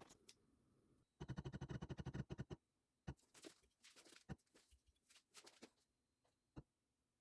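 A rapid run of sharp mechanical clicks lasting just over a second, then a handful of scattered light clicks and taps.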